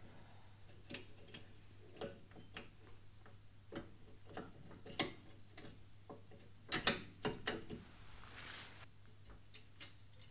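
Light metal clicks and taps of the steel sliding shims being worked by hand into place around the rear wheel cylinder on a Datsun 240Z drum brake backing plate. The clicks come at irregular intervals, with a quick cluster of louder ones about two-thirds of the way through.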